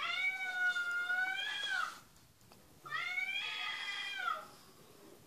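A cat meowing: two long, drawn-out meows a second apart, each bending in pitch at its end.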